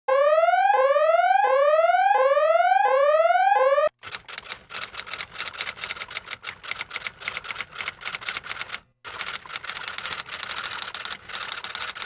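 Editing sound effects: a rising electronic tone repeated about six times in quick succession, then rapid typewriter key clicking for the rest, with a brief pause about nine seconds in.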